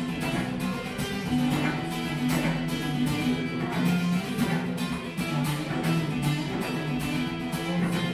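Acoustic guitar strummed in a steady rhythm, with a cello playing held, bowed low notes beneath it: an instrumental guitar-and-cello duo.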